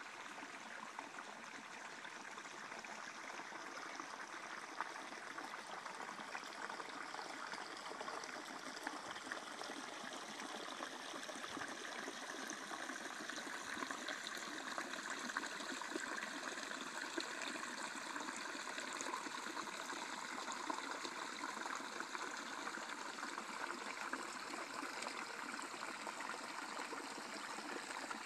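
Small creek trickling and splashing over rocks, a steady rush of water.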